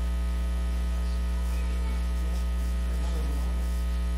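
Steady electrical mains hum, a low constant buzzing drone that does not change, with faint room sounds barely showing beneath it.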